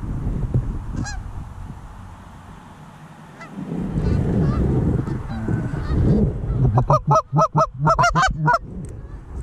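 Canada geese honking: faint distant calls at first, then a loud, fast run of honks and clucks from about seven seconds in that stops shortly before the end. A low rumble lies underneath.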